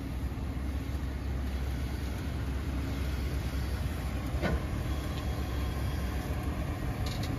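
Steady low rumble of a vehicle under way, engine and road noise, with a single faint click about four and a half seconds in.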